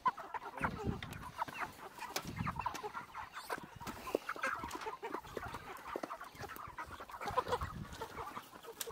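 Chickens clucking repeatedly in short calls, with scattered clicks and knocks.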